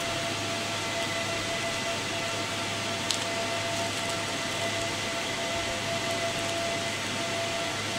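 Steady whooshing hum of the cooling fans in a telecom equipment shelter, with a few constant tones over it and one faint click about three seconds in.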